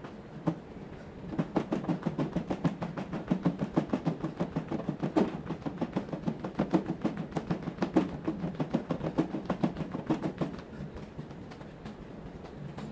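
Quick feet on a plastic aerobic step platform, about four short thuds a second, stopping about ten seconds in; a few single footfalls come before the run.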